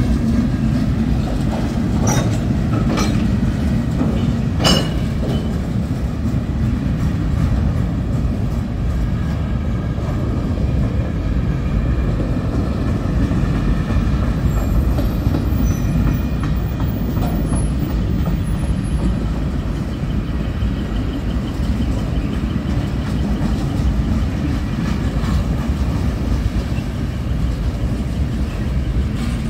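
Freight cars of a long mixed freight train rolling past: a steady rumble of steel wheels on rail, with a few sharp clanks in the first five seconds.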